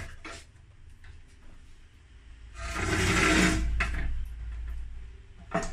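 Mini welding inverter's metal case dragged and turned round on the workbench surface: a scraping rustle lasting about a second and a half, with a few light clicks before it and a sharp click near the end.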